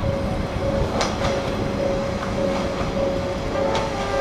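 Railway level crossing bell ringing a repeated single tone about twice a second, over the low rumble of an approaching diesel railcar, with a few sharp clicks.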